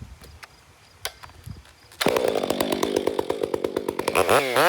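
Stihl MS 462 two-stroke chainsaw bursting into life about halfway in after a few faint knocks, running steadily for a couple of seconds, then being revved up and down several times in quick blips near the end.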